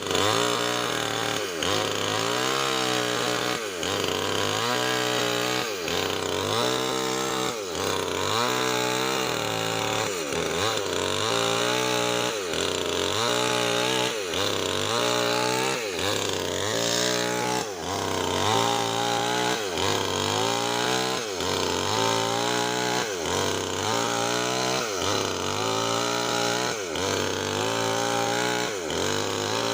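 Nixon chainsaw with a 25-inch bar ripping lengthwise through wood. The engine's pitch rises and falls in a regular cycle about every second and a half as it cuts.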